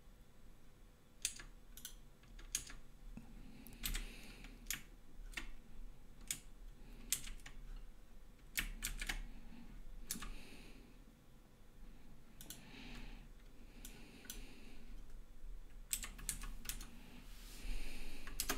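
Computer keyboard keys being tapped: irregular single clicks and short runs of two or three, with pauses between.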